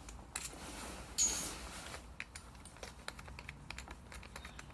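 Small clicks and handling noises of a larger bit being fitted into a power drill's chuck, with one short, loud burst about a second in.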